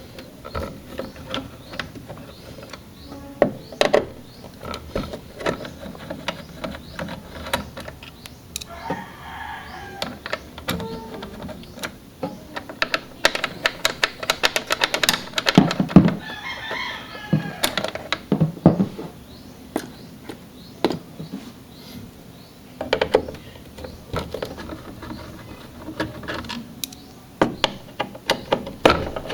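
Phillips screwdriver turning out the screws of an AMD stock cooler's plastic AM4 mounting bracket: irregular clicks, scrapes and knocks of the tool, screws and plastic parts being handled. Two longer wavering calls sound in the background, about a third of the way in and about halfway through.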